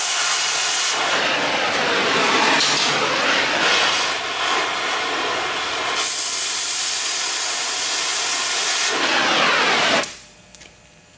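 Cutting torch with a circle-cutter attachment hissing as its flame and oxygen jet cut a round hole through steel plate. The hiss stops abruptly about ten seconds in, when the cut is finished and the torch is lifted away.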